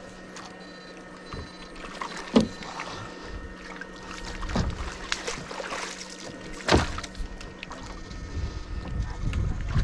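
Water sloshing and splashing, with two sharp splashes about two and seven seconds in, over a steady hum.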